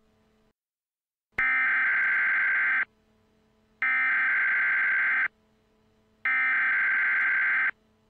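Emergency Alert System SAME header, three identical bursts of buzzy digital data tones, each about a second and a half long with about a second's gap between them. They begin after a short silence and open an Emergency Action Notification alert.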